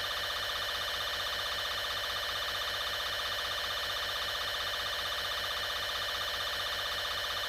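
Steady electronic alert tone from a mock emergency broadcast, holding one even, buzzy pitch with a fast flutter.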